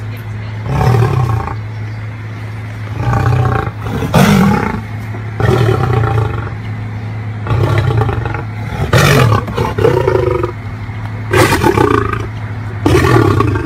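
Male lion roaring repeatedly, a run of about nine loud calls spaced one to two seconds apart.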